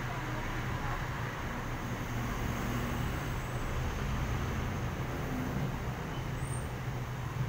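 Street traffic: a jeepney, a small van and motor scooters driving past, over a steady low engine hum.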